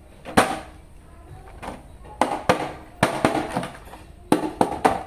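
Irregular sharp plastic clicks and knocks, about nine of them, from a toy action figure and its packaging being handled.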